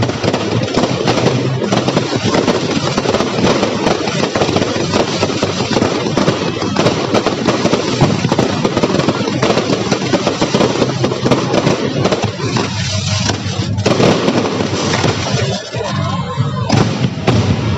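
Fireworks going off in a dense, continuous barrage of bangs and crackling, with voices heard faintly near the end.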